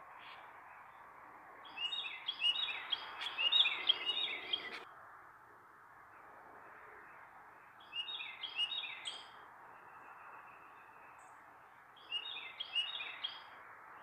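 A songbird singing three bouts of quick, repeated down-slurred notes, the first and loudest lasting about three seconds, the other two shorter, over steady background noise.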